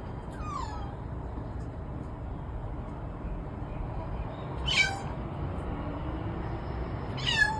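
A cat chirping at pigeons it cannot reach: three short meow-like calls, each falling steeply in pitch, over a steady low rumble.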